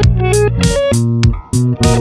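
Background music with plucked guitar and bass over a steady beat.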